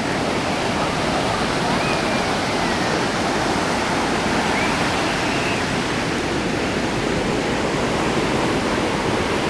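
Ocean surf washing steadily onto the beach: a constant, unbroken rush of breaking water.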